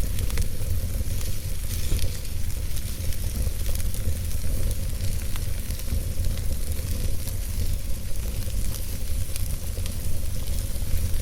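Wood burning in a fireplace, crackling with many small irregular pops and snaps over a steady low rumble.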